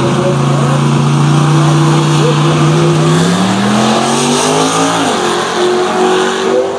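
Two drag-racing cars' engines, a red fourth-generation Chevrolet Camaro's among them, held at steady revs on the start line, then launching about three seconds in with the pitch climbing. The pitch drops sharply at a gear shift about five seconds in and climbs again as they accelerate down the strip.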